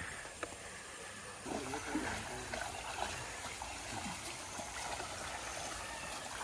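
Water trickling and running, like a small stream.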